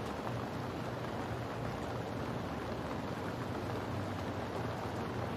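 Steady rain, an even hiss with a low rumble beneath it.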